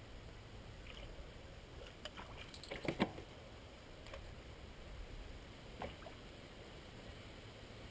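Faint knocks and clicks in a small aluminium fishing boat over a low steady rumble: a cluster of them builds to the loudest knock about three seconds in, and one more comes near six seconds.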